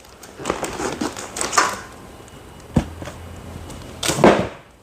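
Cardboard box and plastic-wrapped package being handled: rustling and scraping with a few knocks, a sharp knock nearly three seconds in and a louder rustling scrape just after four seconds.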